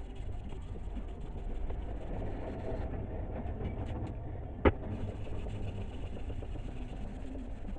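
A steady low mechanical rumble with one sharp, loud knock a little past halfway.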